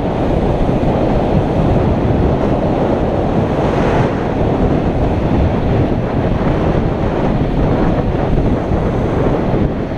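Wind rushing over the camera microphone of a motorcycle riding at speed: a loud, steady rush with no clear engine note standing out of it.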